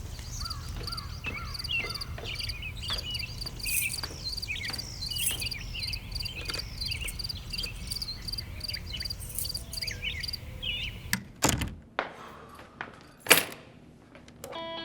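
Crickets chirping in a steady pulsing rhythm, with scattered bird chirps over a low rumble. The ambience cuts off abruptly about eleven seconds in, and a few thuds follow, then one loud sharp impact near the end.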